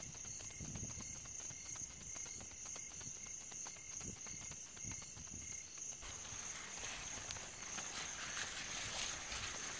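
Insects trilling steadily in the night ambience, with soft irregular low thuds. A rustling hiss comes in about six seconds in.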